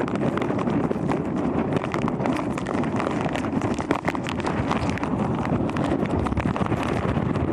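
Hurricane wind buffeting an outdoor microphone: a loud, steady rush of noise full of quick crackles and pops.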